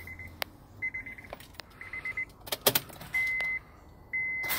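Clicks and rattles of keys and controls in the cab of a Honda Odyssey, with the van's high electronic warning chime beeping on and off in short runs. About four seconds in, a steady whir starts, just before the engine fires.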